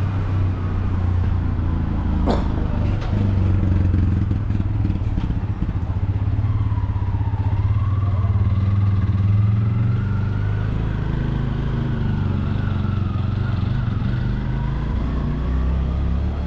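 A motor vehicle's engine running close by, a steady low rumble, with a sharp click about two seconds in.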